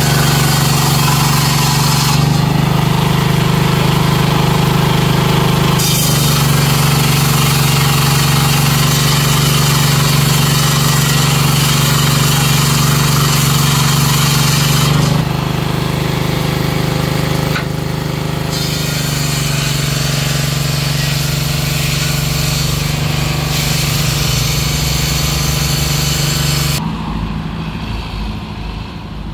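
Small stationary engine driving a woodworking machine at a sawmill, running with a steady loud drone under a dense cutting and rushing noise that changes several times as a plank is passed across the table. Near the end it gives way to quieter road traffic.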